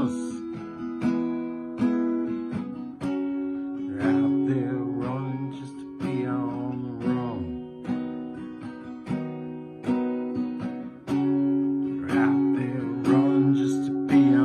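Acoustic guitar strummed in a steady rhythm, about one stroke a second, with the chords ringing between strokes. A wavering higher melody line comes in over it a few times.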